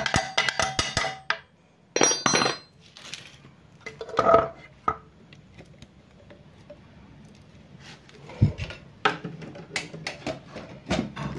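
Hand tools and metal parts clinking and knocking against the scooter's aluminium kick-starter (CVT) cover as the kick-starter is refitted: several short clusters of metallic clinks, some with a brief ring, and a run of quicker clicks near the end.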